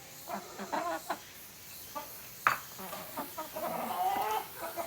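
Domestic chickens clucking, with a longer wavering cluck near the end and a single sharp knock about halfway through.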